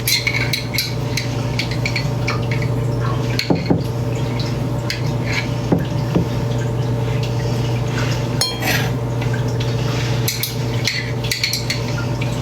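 Kitchen clatter of dishes and utensils during salad preparation: irregular clinks and knocks over a steady low hum.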